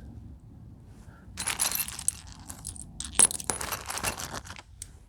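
Small metal hardware parts clinking and rattling against each other as they are handled, in two bursts of sharp, ringing clicks.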